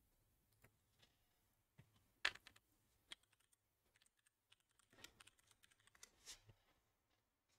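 Faint, irregular typing on a computer keyboard: scattered key clicks, the sharpest about two seconds in and a quick run of them near the end.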